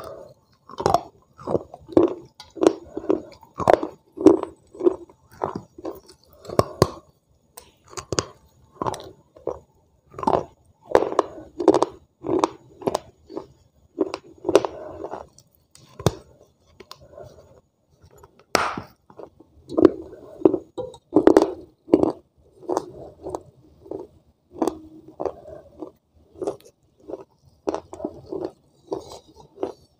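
Crunching bites and chewing of a soaked piece of earthenware clay pot: a crisp crunch about every half second, with a short pause about halfway through.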